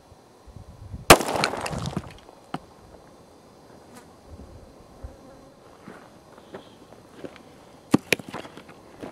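A single shot from a High Standard HD Military .22 pistol about a second in, as the hanging can of shaving cream bursts and sprays foam with a hiss for about a second. Near the end, footsteps on gravel close by.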